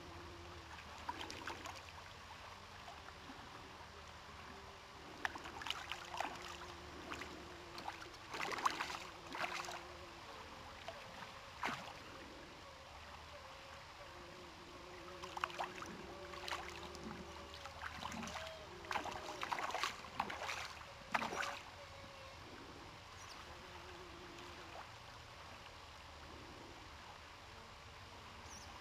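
Irregular splashing of a hooked brown trout thrashing at the surface near the bank, in bursts of a second or two, over a steady low hiss.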